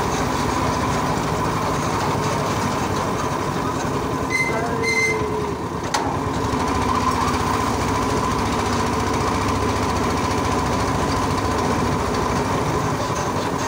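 Trysikad (bicycle pedicab with sidecar) rattling steadily as it rolls over a concrete road, heard from the passenger seat. Two short high beeps sound a little over four seconds in.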